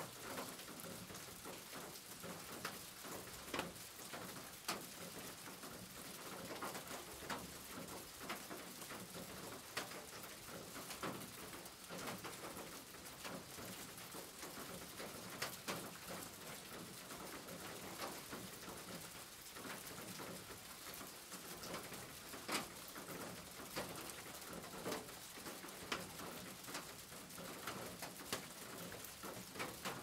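Steady heavy rain on a corrugated tin roof, with irregular sharp drops and drips ticking through it, and a bird calling faintly in the background.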